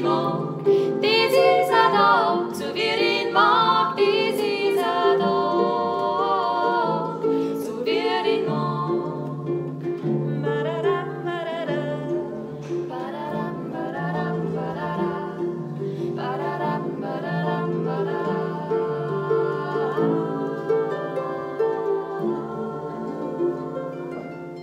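Harp playing with two women's voices singing over it; after about eight seconds the voices stop and the harp carries on alone, fading out near the end.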